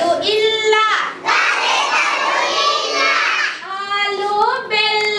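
Young children's voices singing and chanting together. A dense mix of many voices fills the middle, and near the end clear held notes step upward.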